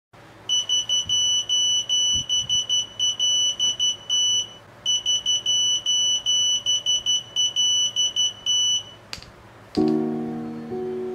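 Electronic buzzer on a breadboard microcontroller circuit beeping a steady high tone in short and long beeps, Morse code for SOS, in two runs with a brief pause between them. Two clicks follow, and piano music starts near the end.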